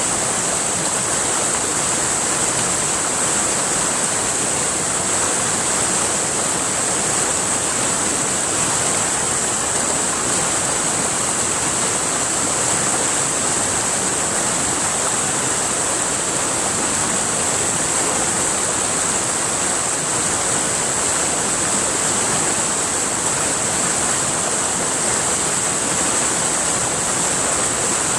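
River water flowing, a steady rushing sound with a bright hiss that does not change.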